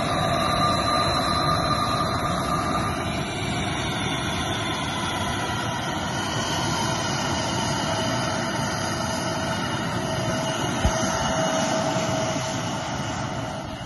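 Embraer E175's twin GE CF34-8E turbofan engines running at taxi power as the jet rolls by: a steady jet whine with several high tones over a low rumble.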